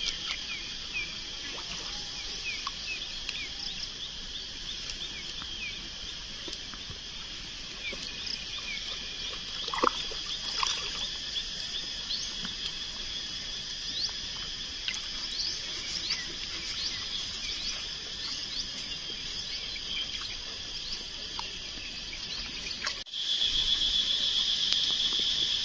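Insects buzzing steadily, with many short, high, rising chirps over the buzz and one brief louder sound about ten seconds in. Near the end the buzz suddenly gets louder.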